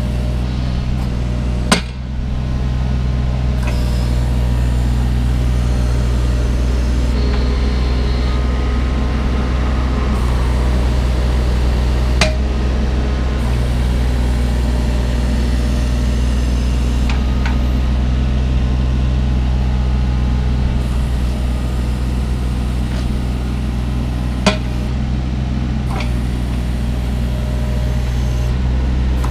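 Kubota U27-4 mini excavator's diesel engine running steadily while the hydraulic arm and clamp bucket are worked. Occasional sharp knocks ring out over the engine, the loudest about 2, 12 and 24 seconds in.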